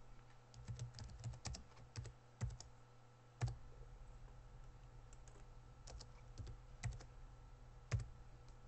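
Computer keyboard typing: scattered keystrokes in short runs with pauses, the sharpest about three and a half seconds in and again near the end, over a steady low hum.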